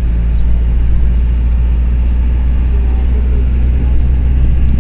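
Minibus engine and road noise heard from inside the cabin while under way: a loud, steady, deep rumble with a low hum.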